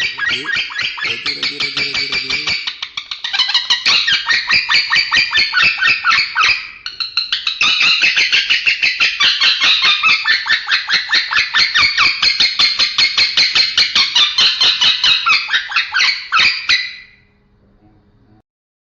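Male lovebird chattering in a long, rapid run of harsh chirps, about ten a second, with a short pause about seven seconds in. The chatter stops a couple of seconds before the end.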